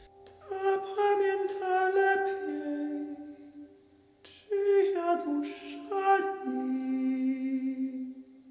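A countertenor sings a slow, quiet song, accompanied by a Yamaha grand piano. It comes in two sustained phrases with a short breath between them about four seconds in.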